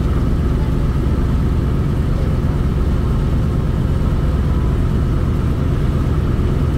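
Radial piston engines of a Ford Trimotor running steadily at low taxi power, heard from inside the cabin as a low, even engine sound.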